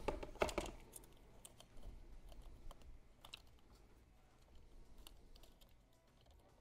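Faint, irregular small clicks and taps of fingers pressing a strip of folded aluminum foil into a toy's plastic battery compartment. They stop shortly before the end.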